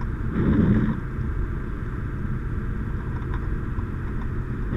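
Steady low vehicle rumble, with a brief louder swell about half a second in.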